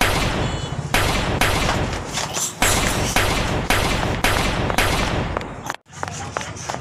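Gunfire sound effect: a rapid string of about ten loud shots, each with a long decaying tail, cutting off abruptly near the end.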